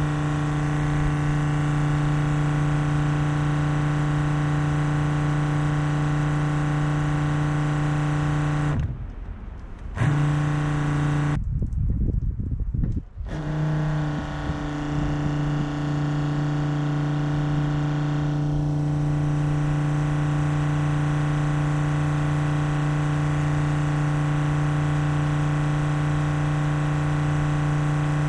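12-volt Flojet soft-wash pump running with a steady hum, cutting out briefly twice and starting again. It pulses on and off because the spray wand is only barely opened.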